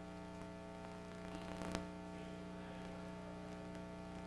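Steady electrical mains hum, a low buzz made of several fixed tones, with a single faint click about a second and a half in.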